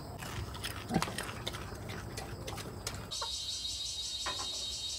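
Pig grunting in a bamboo pen, with one louder grunt about a second in that drops in pitch, among light clicks. About three seconds in it cuts to a steady, evenly pulsing insect chorus.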